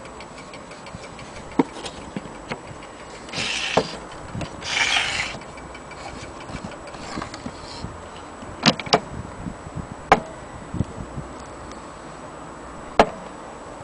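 German striking mantel clock's movement ticking steadily, under sharp knocks and clicks from the wooden case being handled, with two short rustling noises about three and a half and five seconds in.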